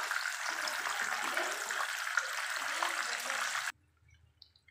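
Breaded fish sizzling as it shallow-fries in hot oil in a pan, a dense steady hiss that cuts off suddenly near the end.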